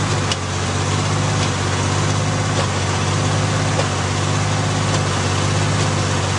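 The engine of an old, rusted truck idling steadily at an even speed.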